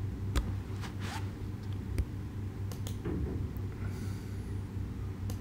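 A few short computer-mouse clicks and light knocks over a steady low hum.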